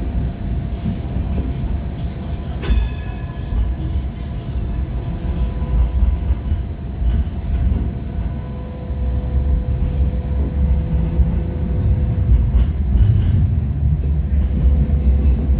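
First-generation MTR Light Rail car running along the track: a steady low rumble of wheels on rail with a sharp click about three seconds in and a few fainter clicks later, over faint steady whining tones from the running gear.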